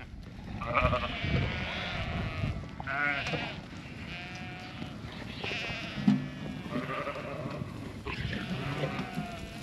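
A flock of sheep bleating, many overlapping calls from several animals at once, ewes and lambs calling on being separated at weaning.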